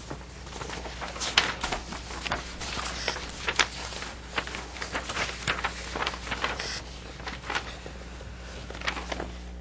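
Scattered, irregular clicks and rustles of handling noise at the meeting table, such as papers and objects being moved near the microphones, over a low steady hum.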